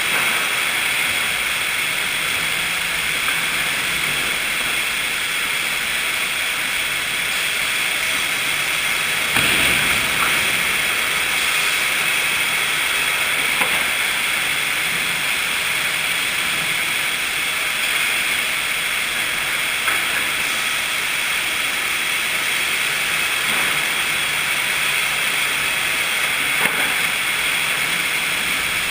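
Sawmill machinery running steadily in a sawmill cutting eucalyptus hardwood, a constant hissing din with a few short knocks scattered through it.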